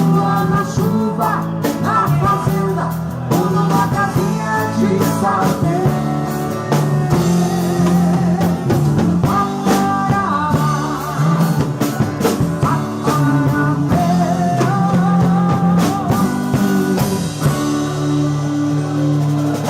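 A live band playing a soft-rock song: drum kit, bass and guitar, with a wavering melody line over steady bass notes.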